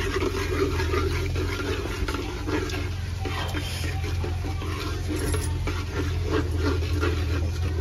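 Whole spices (cumin, cloves, cardamom, cinnamon, black pepper) sizzling in hot oil in a metal pot on a wood-fired chulha, stirred with a metal ladle, over a steady low hum.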